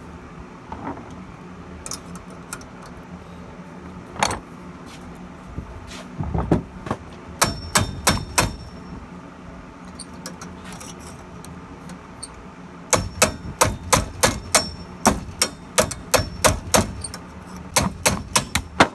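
Sharp metallic knocks of a steel tool driven by hand against a worn bearing inside an edger's spindle housing to force it out. There are a few strikes about seven to nine seconds in, then a quick run of ringing knocks, about three a second, over the last six seconds.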